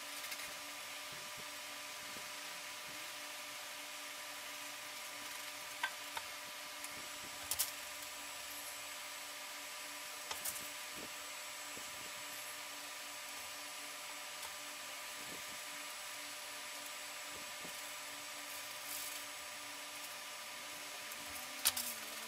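Steady room hiss with a faint electrical hum, broken now and then by a few light clicks and taps.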